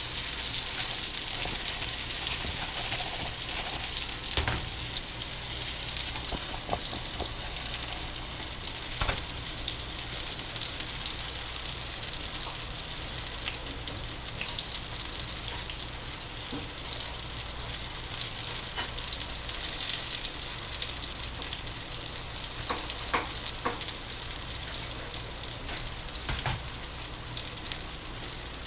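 Food frying in a pan: a steady sizzle with scattered crackles and pops.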